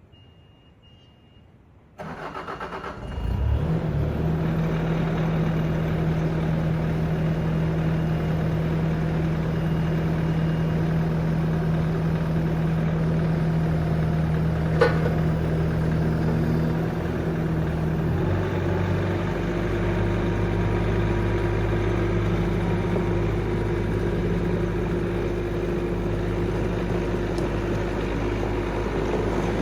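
Bobcat S650 skid steer's diesel engine starting: a short high beep, cranking about two seconds in, and the engine catching a second later, then running steadily. Its note changes about two-thirds of the way through, with one sharp click shortly before.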